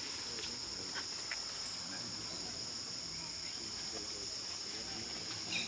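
Steady high-pitched insect drone, with a brief high wavering call about half a second in.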